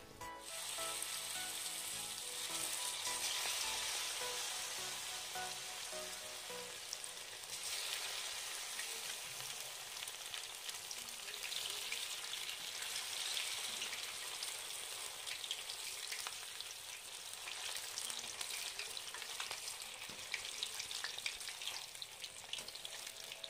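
Marinated mrigal fish pieces deep-frying in hot oil in a kadhai: a dense sizzle with many small crackles, starting suddenly about half a second in as the fish goes into the oil, and running on at a steady strength.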